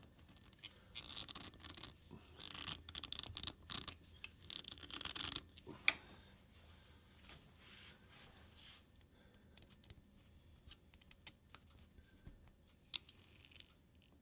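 Scratching, scraping and clicking of hand tools on the boring head as it is adjusted for a 40-thousandths cut, with the mill not running. There is one sharp click about six seconds in, and after it only faint scattered ticks.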